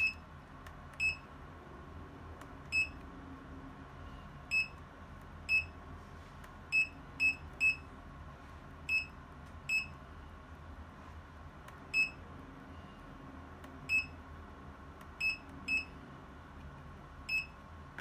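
Portable insulin cooler's control panel beeping as its buttons are pressed: about fifteen short, high single-pitch beeps at irregular intervals, several in quick succession in the middle, over a faint steady hum.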